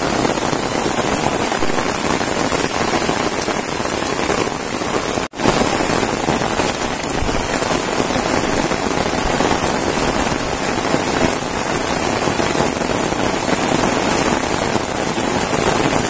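Steady rain falling on an umbrella held just over the microphone: a dense, even hiss of drops. It cuts out for an instant about five seconds in.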